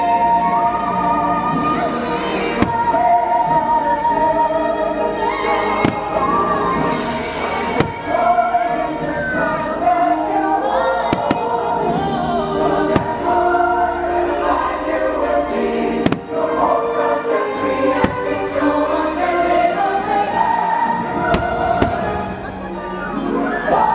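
Fireworks show soundtrack of orchestral music with a choir singing, played over loudspeakers, with scattered firework bangs cutting through it.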